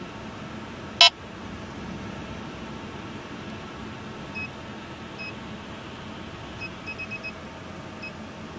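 Escort 9500iX Euro radar detector sounding inside a moving car: one short loud electronic tone about a second in, then scattered short high beeps of its K-band radar alert, with a quick run of four near the end. A steady low road and cabin noise runs underneath.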